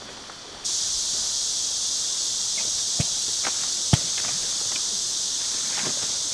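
Steady chorus of crickets and other autumn insects, a high shrill hiss that comes in suddenly about half a second in, with a few scattered sharp taps and knocks, the loudest two about a second apart near the middle.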